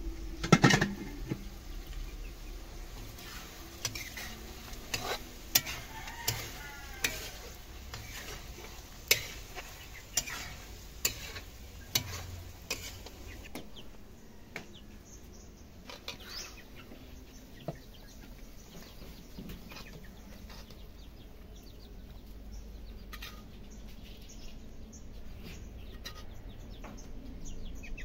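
Metal spatula and lid clanking and scraping against a wok of squid adobo, with sharp strikes mostly in the first half, over a soft sizzle. Chickens cluck in the background.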